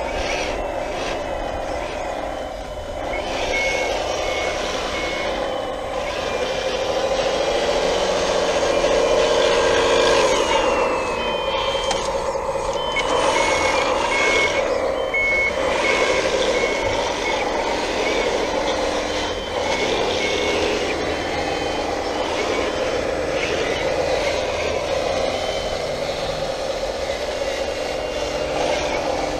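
1/14-scale hydraulic RC wheel loader and bulldozer at work: the whine of their motors and hydraulic pumps rises and falls as they move and dig. Stretches of repeated high electronic reversing beeps come from their sound units.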